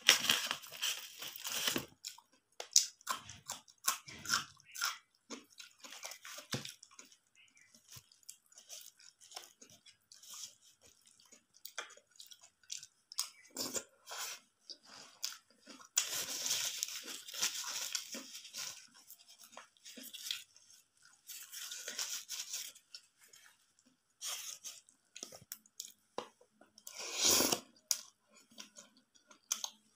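Close-miked chewing and crunching of chaat topped with crisp sev: irregular crackly crunches and mouth sounds, coming thicker about a second in, around the middle and near the end.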